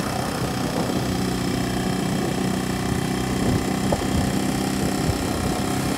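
Motorcycle engine running steadily while riding along a road, an even hum with no change in pace.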